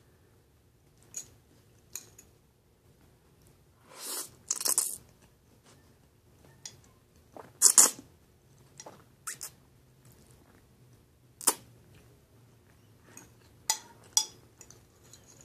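Spaghetti being slurped and chewed close to the microphone: loud slurps about four to five seconds in and again, loudest, about eight seconds in, with wet chewing and a few short sharp clicks between them.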